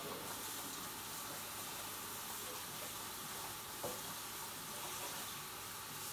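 Steady low hiss, with one short click about four seconds in.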